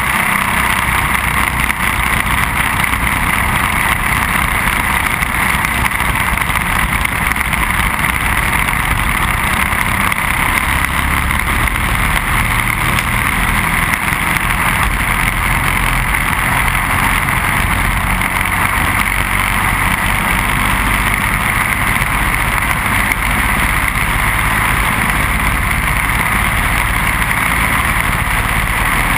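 Briggs & Stratton Animal single-cylinder four-stroke kart engine running on track, heard on board with steady wind rush over the microphone.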